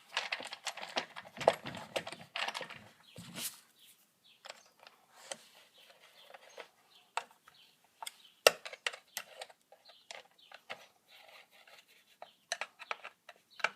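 Plastic top cover of a Poulan chainsaw being handled, fitted back on and screwed down: scattered clicks, taps and rattles, busiest in the first few seconds.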